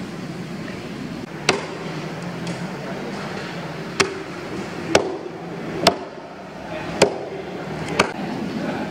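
Six sharp chops of a large knife cutting through giant trevally into a wooden chopping block, the later ones about a second apart, over a low steady background hum.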